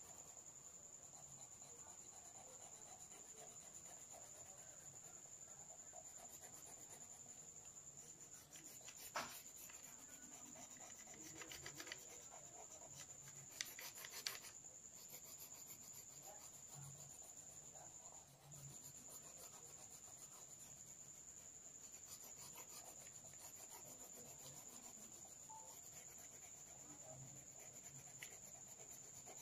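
Faint scratching of a coloured pencil shading on paper, with a steady high whine behind it. A sharp click comes about nine seconds in, and a few light knocks follow around fourteen seconds.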